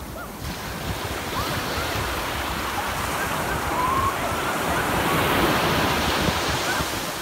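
Small ocean waves breaking and washing up over wet sand, a steady surf rush that swells louder about halfway through and eases off near the end, with wind buffeting the microphone.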